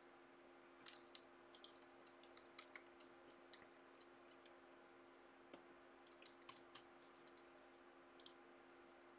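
Faint, scattered clicks of a computer mouse and keyboard, about a dozen irregular taps, over a faint steady low hum.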